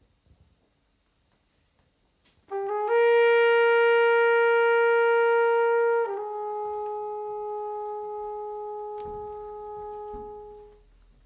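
A long held brass-like note that slides up into pitch, holds loud and steady, then steps slightly lower and softer about halfway through and fades out near the end.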